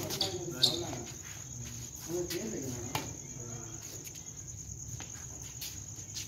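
Crickets chirping steadily in a high, even trill. A sharp shuttlecock strike off a badminton racket comes about half a second in, and another knock about three seconds in.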